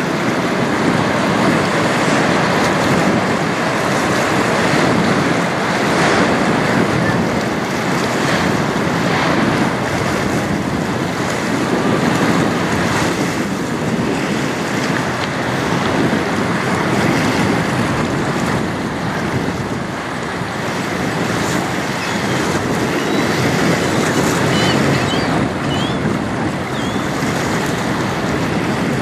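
Steady wind buffeting the microphone over the rush and lapping of choppy river water, with a few faint high chirps near the end.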